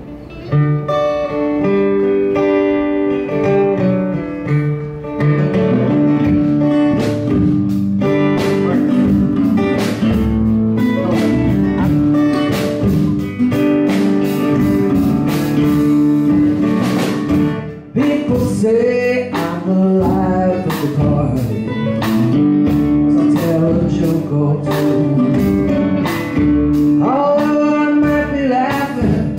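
Small band playing a song: two acoustic guitars strumming and picking from the start, a drum kit keeping a steady beat from about six seconds in, and a man's singing voice entering later.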